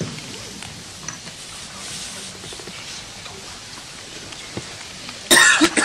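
Room noise of a seated cinema audience between speakers, a steady low murmur and rustle, with a short loud burst of noise near the end.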